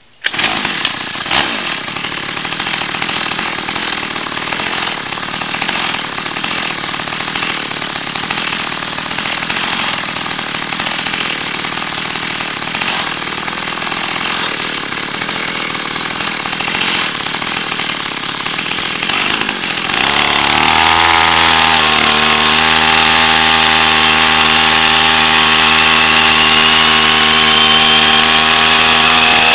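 49cc two-stroke pocket-bike engine on a homemade motorized chopper bicycle, running as the bike rides along. For the first two-thirds it sounds rough and noisy; then it turns into a louder, clear buzz whose pitch dips briefly and then climbs steadily as the bike speeds up.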